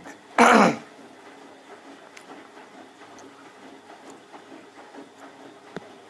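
A person clears their throat once about half a second in. Then a Bosch WFF2000 washing machine runs quietly on its main wash with an empty drum turning, a faint steady hum with small ticks.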